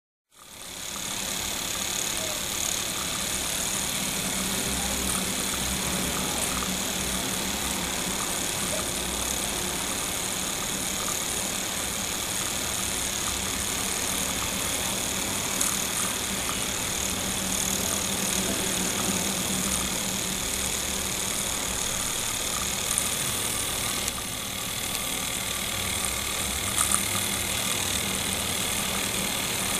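Peake Micro miniature oscillating steam engine running fast and steadily, a continuous hum, over the steady hiss of the pencil torch flame heating its little boiler. A few faint ticks late on.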